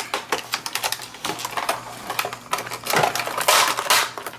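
Plastic blister packaging and cardboard being handled, a stream of irregular crackles and clicks, with a louder rustle a little past three and a half seconds in.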